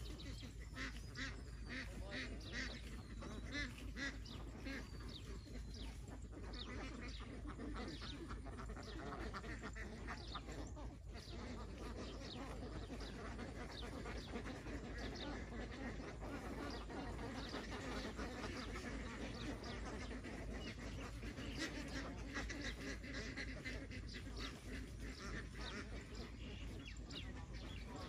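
A large flock of domestic ducks quacking, many short calls overlapping in a steady, continuous chatter.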